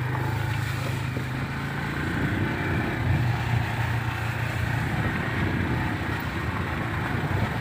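Motor vehicle engine running steadily while moving along a forest track, with a rougher, uneven rumble from about two seconds in.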